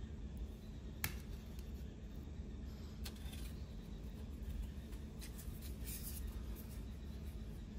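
Thin blank metal cards being handled with gloved hands, clicking and sliding against each other. There is a sharp click about a second in, another about three seconds in, and a run of light ticks and scrapes around five to six seconds, over a steady low hum.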